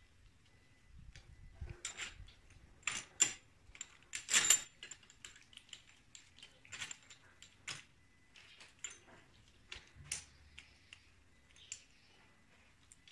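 Irregular metallic clicks and clinks of steel valve-train parts, pushrods and rocker arms, being handled and set in place on a Mitsubishi 4D33 diesel cylinder head. The loudest clatter comes about four and a half seconds in.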